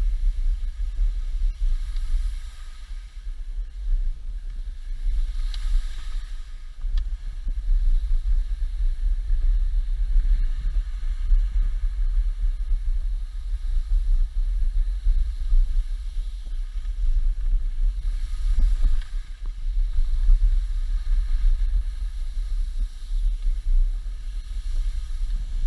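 Wind buffeting the camera microphone during a downhill ski run: a steady, gusting low rumble, with a faint hiss from the skis on the snow that swells a few times.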